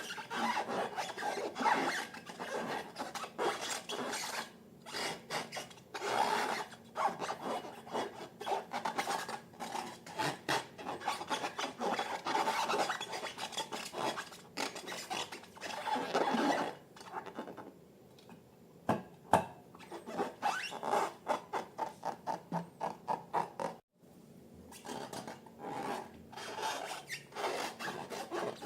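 Slime being worked by hand, stirred, squished and pressed, giving a sticky crackling, rubbing sound. Past the middle there is a run of quick, even squishes, about three or four a second.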